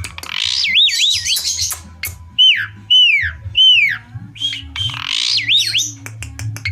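Asian pied starling (jalak suren) calling: loud whistles that slide downward, about one a second, with two bursts of quick up-and-down warbling whistles over a harsh, rasping squawk, one near the start and one about five seconds in.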